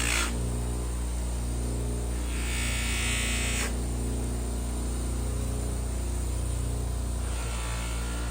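A small electric motor hums steadily. A burst of hissing noise about two and a half seconds in lasts around a second.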